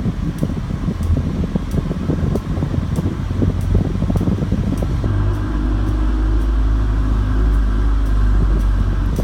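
Light clicking from a Mk7 Volkswagen Golf R, evenly repeated about twice a second over a loud, steady low running noise that becomes smoother about halfway through.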